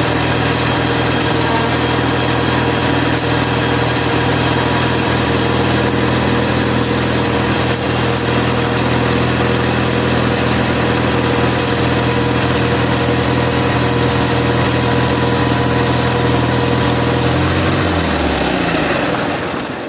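Ural flat-twin motorcycle engine running steadily in fourth gear at a fixed throttle, with the raised rear wheel spinning freely during carburettor synchronisation. Near the end its pitch falls and the sound dies away as it winds down.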